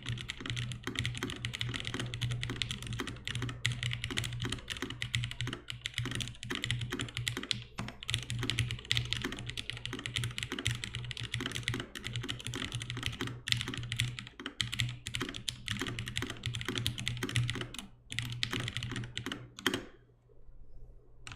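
Continuous fast typing on a gasket-mounted mechanical keyboard with lubed 60g retooled Cherry MX Black linear switches, aluminum case and half plate, and dye-sub keycaps; the keystrokes stop about 20 seconds in.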